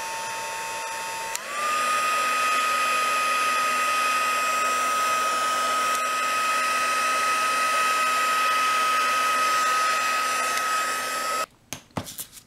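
Handheld craft heat tool blowing, with a steady motor whine over the rush of air. About a second and a half in there is a click and the whine steps up in pitch and gets louder. Near the end it cuts off suddenly, followed by a few light clicks.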